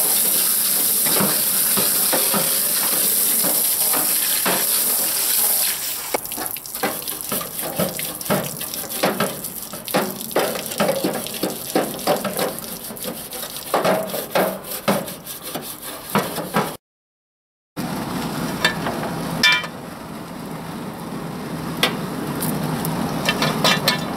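Garden hose spraying water onto gas grill grates while a wire grill brush scrubs them, then the brush scraping back and forth across the bars in quick, uneven strokes. After a short dropout, a steady low hiss with a few clicks.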